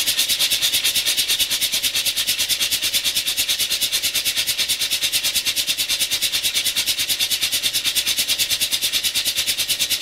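Mazda 13B rotary engine cranking on its starter with the spark plugs removed, in a fast, even pulse of about nine beats a second with a hiss over it. The engine is being turned over to clear it after it was flooded.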